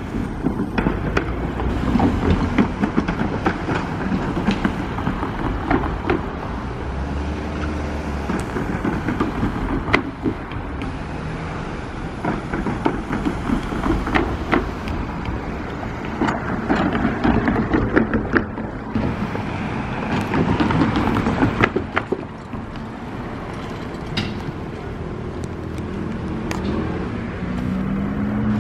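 Electric commuter train of the Kyoto Municipal Subway running past, its wheels clattering over rail joints and points over a steady rumble. A rising hum starts near the end.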